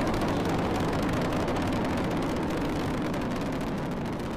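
Space Shuttle Discovery's rocket engines during launch ascent: a steady crackling rumble that slowly fades towards the end.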